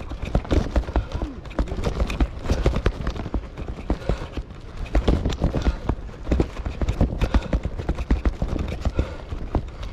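Bicycle clattering and rattling on the move, with many irregular knocks from the bike and road and a steady rumble of wind on the microphone.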